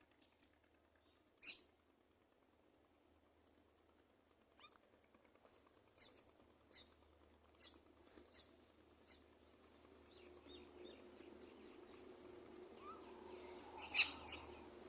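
Short, high-pitched animal calls: one about a second and a half in, a run of five between about six and nine seconds, and the loudest pair near the end, over a faint steady hum that builds in the second half.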